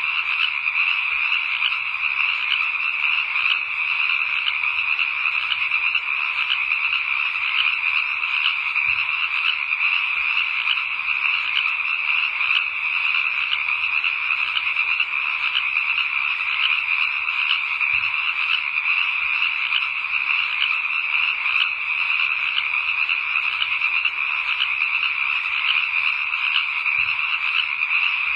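A steady, dense chorus of frogs calling without a break, a night-time ambience.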